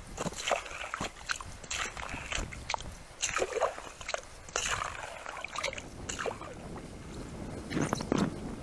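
Slush and ice chips sloshing and scraping as a scoop clears a drilled hole in lake ice, in short irregular strokes. Near the end, a louder clatter as a foam mat is handled on the snow.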